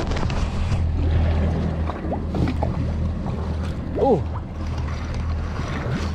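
Outboard engines idling steadily, a low even hum under wind and water noise. About four seconds in there is one short rising-and-falling tone.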